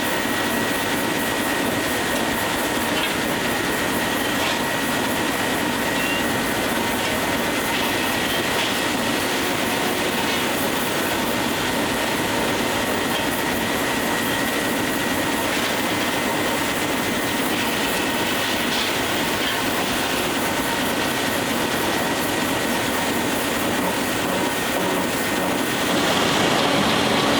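Steam-powered sawmill running: flat drive belts, line shaft, pulleys and gears turning with a steady clattering mechanical din and a thin steady whine. It gets somewhat louder near the end.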